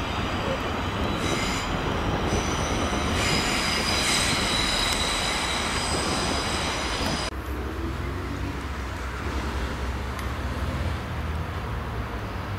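An electric multiple-unit train runs along the platform: a rumble with a high-pitched squeal over it. About seven seconds in, the sound cuts abruptly to a lower, quieter rumble of another train approaching.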